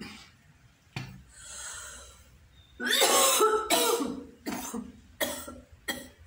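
A person coughing: one cough about a second in, a longer, louder coughing fit about three seconds in, then three short coughs near the end.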